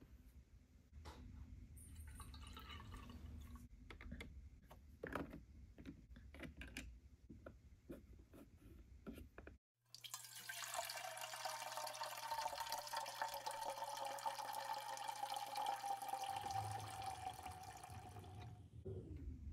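A miniature toy coffee maker's small pump running for about nine seconds, a steady hum with water trickling into a tiny cup, the pitch sagging slightly before it stops near the end. Before it starts, light clicks and taps of tiny plastic cups and parts being handled.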